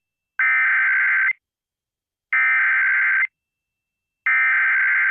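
Emergency Alert System SAME header: three identical bursts of rapid digital data tones, each about a second long with about a second of silence between them. They open the alert message, here an Amber Alert.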